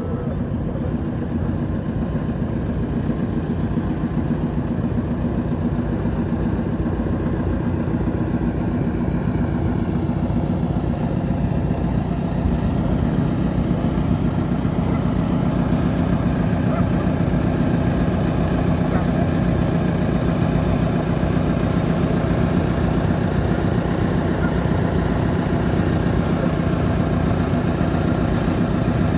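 Small tug boat's engine running steadily as it pushes a river ferry pontoon.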